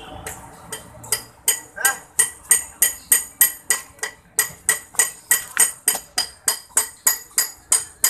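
Rapid, evenly spaced hammer blows on metal, about three a second with a brief pause midway, each strike ringing briefly.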